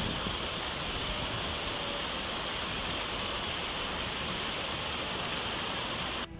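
Small mountain stream rushing over rocks, a steady even rush of water that stops abruptly near the end.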